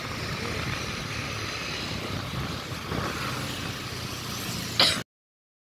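Motorcycle riding along at a steady speed, heard from the pillion seat: steady engine and road-and-wind noise. Just before the end a short loud noise, then the sound cuts out to dead silence.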